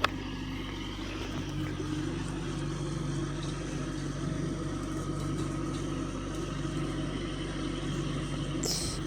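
Engine running steadily with an even hum. A short click comes right at the start, and rustling scrapes near the end.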